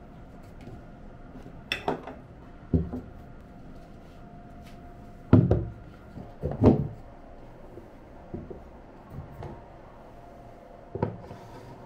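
Several knocks and thuds of things being set down and arranged on a wooden desk, including a laptop being slotted into a bamboo laptop stand. The two loudest thuds come about halfway through, over a faint steady hum.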